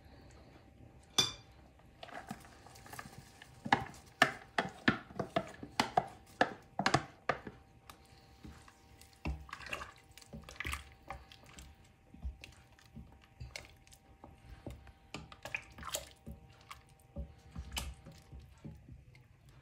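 Wooden spoon stirring soup in a steel pot: irregular knocks and scrapes of the spoon against the pot, in a quick run about four to seven seconds in and sparser after, with the soup's liquid stirred around.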